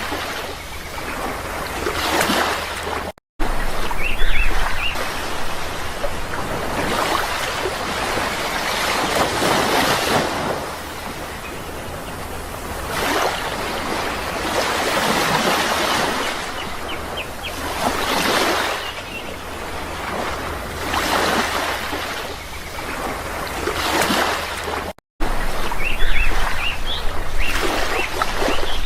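Sea waves breaking and washing in, one swell after another every few seconds. The sound cuts out completely twice for an instant, near the start and near the end.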